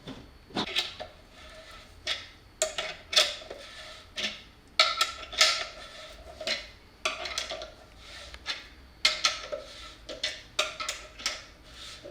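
A 1/2-inch hand tap being turned into a freshly drilled hole in a metal box, giving irregular metallic clinks and scrapes, each with a short ringing tone, as the threads are cut part-way down.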